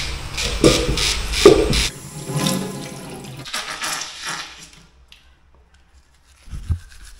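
Cartridge razor scraping through beard stubble in quick even strokes, about three a second. After about two seconds a tap runs into a stainless-steel sink and stops about five seconds in, with a single low knock near the end.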